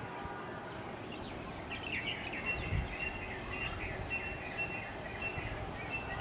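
Background birdsong: several small birds chirping in quick high notes, with a high note repeated many times over from about two seconds in, over a low outdoor hum.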